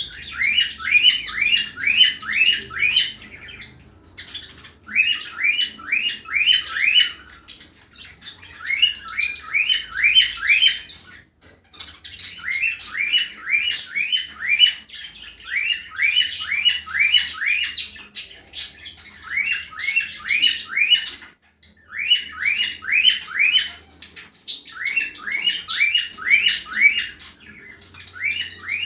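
Cockatiel calling: runs of short, sharp chirping squawks, about three a second, each run lasting a second or few and broken by brief pauses.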